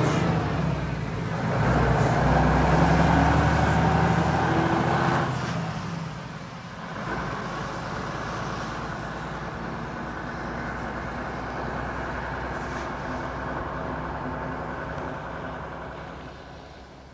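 Refuse truck engine running as the truck pulls away, loud for the first five seconds or so, then dropping to a quieter steady hum that fades out near the end.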